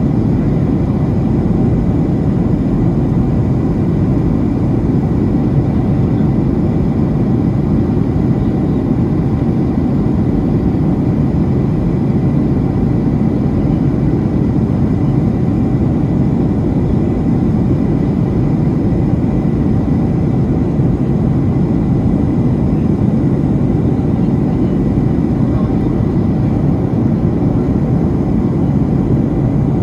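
Steady cabin noise inside a Boeing 737-700 in descent: its CFM56-7B engines and the airflow over the fuselage make a low, even rumble with a faint steady high tone above it.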